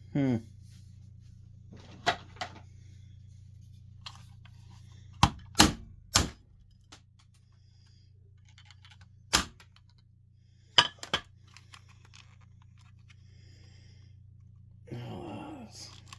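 Sharp clicks and knocks of a hard plastic carbon monoxide alarm casing being handled and worked open, about eight separate taps spread out, over a low steady hum.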